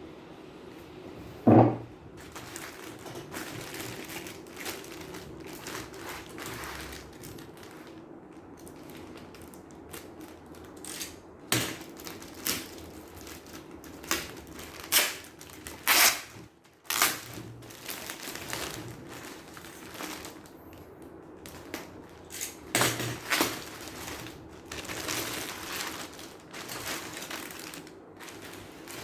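A keyboard's cardboard box and packaging being handled and opened: irregular knocks, scrapes and rustles. There is a sharp knock about a second and a half in and a run of louder knocks in the middle, over a steady low hum.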